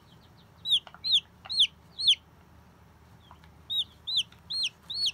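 Baby chicken chick peeping loudly in two runs of about four peeps each, with a pause of about a second and a half between; each peep is a short high note that rises and then falls in pitch.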